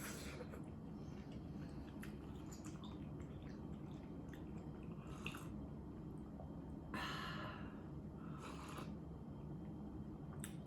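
Quiet eating sounds: soft chewing and a few short breathy sounds, the loudest about seven seconds in, with small clicks.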